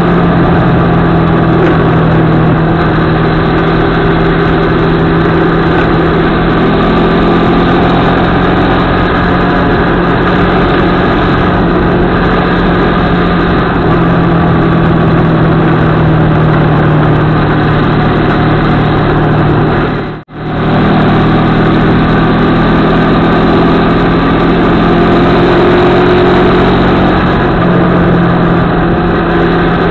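CFMoto 650MT motorcycle's parallel-twin engine running at a steady road pace, heard through a bike-mounted camera with heavy wind rush. The sound cuts out for a split second about twenty seconds in.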